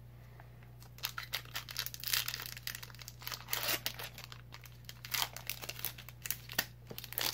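Foil wrapper of a Pokémon trading card booster pack being torn open and crinkled by hand, in irregular crackling bursts that start about a second in.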